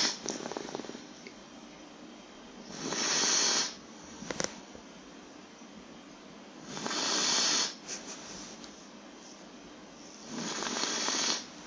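A three-month-old Bernese Mountain Dog puppy snoring in its sleep: three long, breathy snores about four seconds apart, each lasting about a second.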